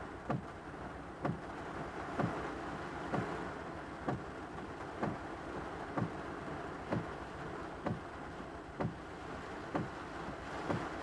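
Car windshield wipers running in heavy rain, each stroke a short dull thump about once a second, over the steady hiss of rain on the car.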